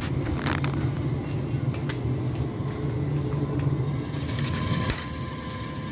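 Supermarket background: a steady low rumble with faint hiss above it, broken by a few light knocks, about half a second in and again past the four-second mark.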